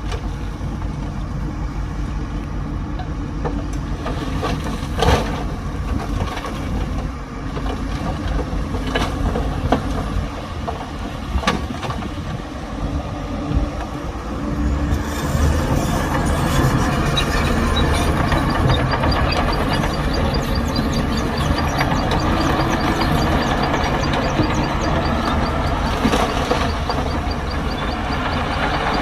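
Heavy diesel earthmoving machinery working: a bulldozer and dump truck at a loading site, engines running steadily. Sharp metal clanks come about five, nine and eleven seconds in, and the engine noise grows louder about halfway through.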